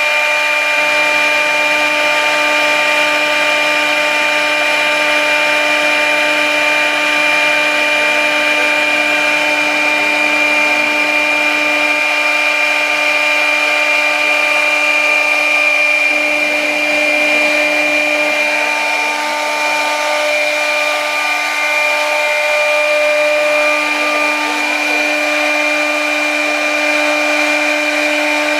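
CNC router spindle running with a steady high whine as its end mill cuts a slot through 22 mm compact board, the cutting noise continuous underneath.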